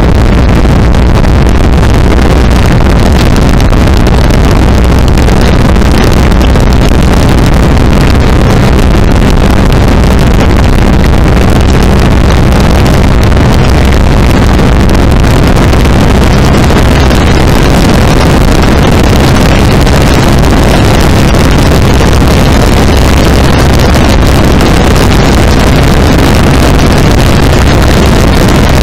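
Go-kart engine running steadily at cruising speed while towing a small trailer, loud and close, mixed with heavy wind noise on the helmet-mounted microphone.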